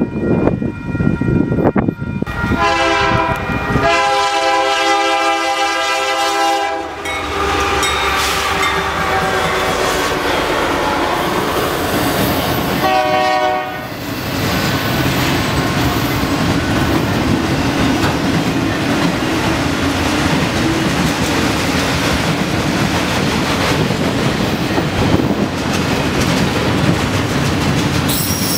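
Union Pacific freight train's locomotive air horn sounds a long chord blast about two seconds in, then a shorter one around 13 s. After that a long string of autorack cars rolls by with steady wheel clatter and rumble.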